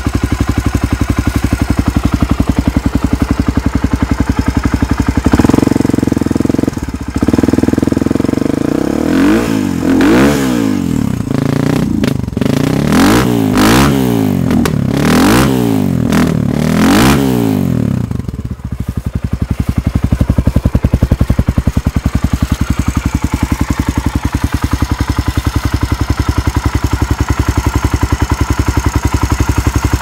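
Suzuki DR250SE's single-cylinder four-stroke engine with an FMF aftermarket exhaust, idling, then held at higher revs and blipped up and down about six times before dropping back to idle about two-thirds of the way through. The engine is still cold and has not warmed up.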